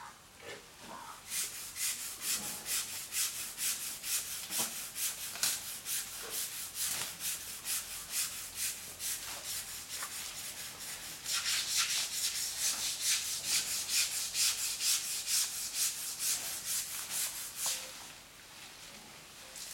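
Rhythmic scrubbing of a wet Asian elephant's hide by hand, a hissing rub repeated about two to three times a second, growing louder about halfway through and stopping shortly before the end.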